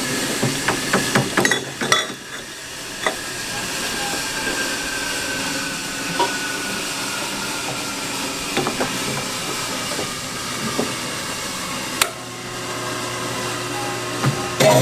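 Shop work on exhaust tubing: a quick run of knocks and taps, then a steady hiss with a faint whine that slowly falls in pitch, and one sharp knock near the end.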